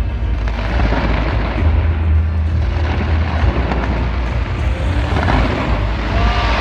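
Fireworks going off in a dense continuous barrage, booms and crackle running together over a heavy low rumble.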